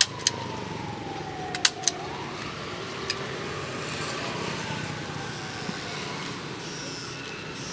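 A motor whining, its pitch sliding down, jumping back up about two seconds in, then falling slowly again. A few sharp clicks sound in the first two seconds, over a steady background hum.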